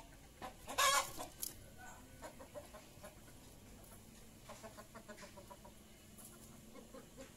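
Kampung chickens clucking in a pen, with one loud squawk about a second in and bursts of short clucks around the middle.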